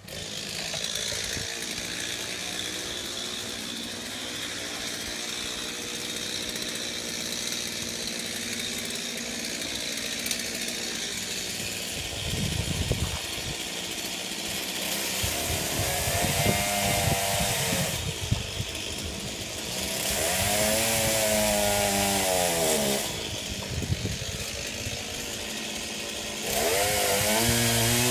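Chainsaw running, steady at first, then revved up in several stretches through the second half, its pitch rising and falling with each rev; the last rev climbs and stays high at the end.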